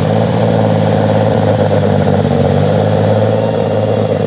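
Engine of a Case IH light super stock pulling tractor running loud and steady at one pitch as it pulls the sled down the track.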